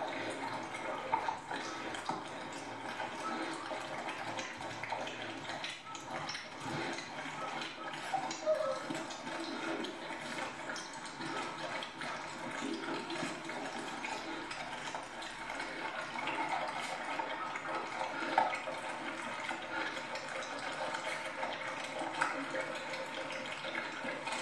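Puppies lapping liquid from a shallow plastic tray: a steady wet slurping with many small tongue clicks and taps.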